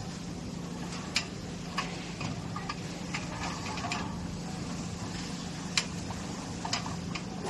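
Light metal clicks from a steel storage cabinet's drawer lock and latch being worked by gloved hands: a handful of short, irregularly spaced clicks, the sharpest about a second in and just before six seconds, over a steady low hum.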